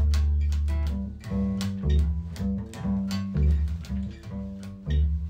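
Instrumental music: a guitar picking single notes over a bass line, the first bass note held for about a second and the rest played shorter.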